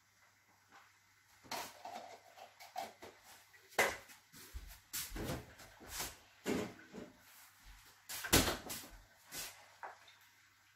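Kitchen clatter: a refrigerator door opened and shut, with a run of separate knocks and bumps of things being handled, the loudest about three-quarters of the way through.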